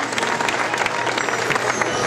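Large theatre audience applauding, a dense steady patter of many hands clapping.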